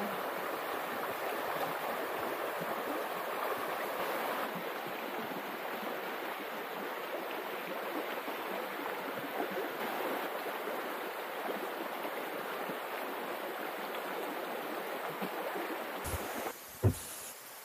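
Steady rush of flowing stream water. Near the end the rush drops away and a single sharp knock sounds.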